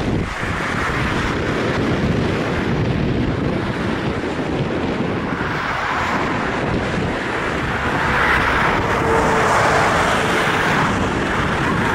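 Twin-engine Boeing 737 jet airliner on final approach, a steady jet engine noise mixed with wind buffeting the microphone.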